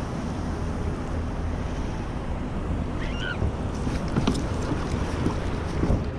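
Wind buffeting the microphone over water sloshing against a kayak hull, with a few light knocks and splashes about four seconds in and again near the end.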